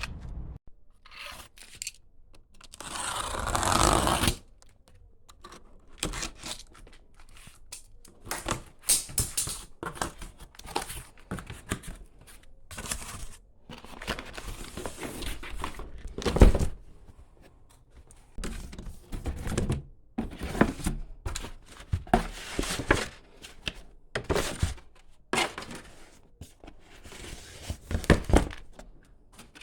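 Unboxing noises from a skate box and its packaging being opened and handled: a tearing, ripping rustle about three to four seconds in, then scattered rustling, clicks and knocks, with one loud thud about sixteen seconds in.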